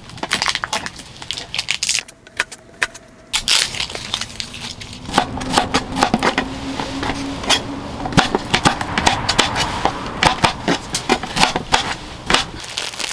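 Kitchen knife cutting through a crisp green squash and tapping on a plastic cutting board: a long run of short, sharp cuts with a brief pause about two seconds in.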